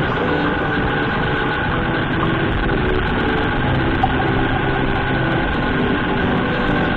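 Motorcycle engine running steadily at road speed, with wind and road noise on the rider's microphone; a single sharp click about four seconds in.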